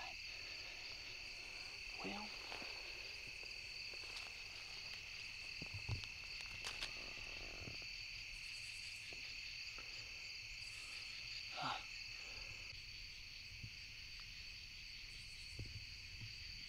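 Crickets and other night insects trilling steadily in two unbroken high pitches, with a few faint knocks and rustles in the grass.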